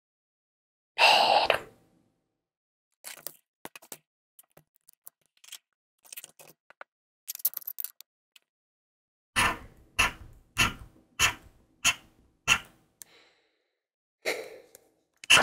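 Instant lottery scratch tickets being handled and scratched off. There is a loud scrape about a second in, then scattered light clicks and rustles, then a run of about six even, short scratching strokes, then another scrape near the end.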